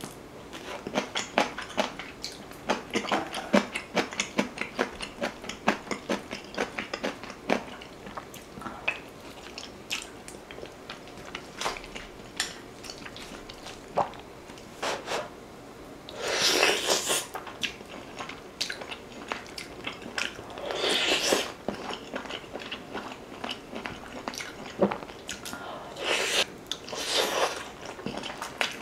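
Close-miked eating sounds of a woman chewing tender beef-rib meat and glass noodles from Korean beef-rib soup: quick wet mouth smacks and clicks, densest in the first third, with three longer, noisier sounds of about a second each around the middle and near the end.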